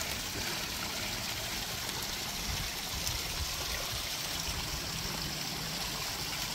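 Steady running water trickling.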